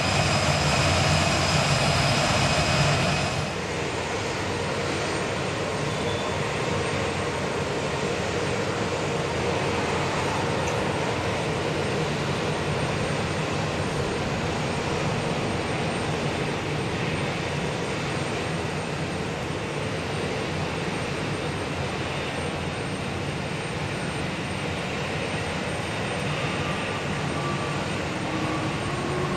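Airbus A319 jet engines whining steadily at taxi thrust, close by. About three seconds in, this cuts to the steady rush of an Embraer 190-E2 jet airliner on final approach and touching down, with a faint rising whine near the end.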